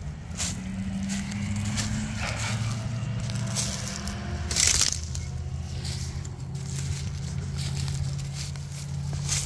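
Footsteps crunching through dry fallen leaves and brush, with twigs crackling and snapping underfoot and one louder crunch about halfway through. A low steady hum runs underneath.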